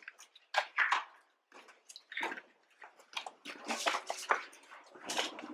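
Scuffing footsteps and shuffling of people moving on a gritty stone floor in a small stone chamber, as a series of short, irregular rasping noises.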